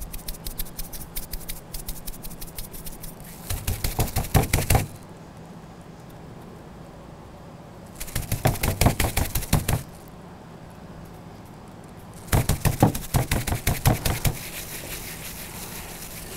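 Seasoning being shaken from spice shakers onto a raw beef chuck roast and rubbed in by plastic-gloved hands: rapid clicking and rattling that comes in three louder bursts of a second or two each, with quiet gaps between.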